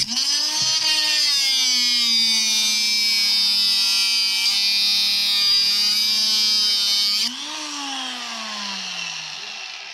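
Electric angle grinder cutting into the metal fitting of a hydraulic hose held in a vise, its motor running steadily under load with a harsh high grinding of wheel on steel. A little past seven seconds in, it is lifted off the work and winds down in a falling whine.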